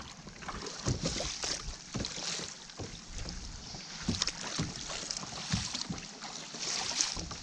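Kayak paddle strokes splashing in the water, a splash every second or two, with wind buffeting the microphone.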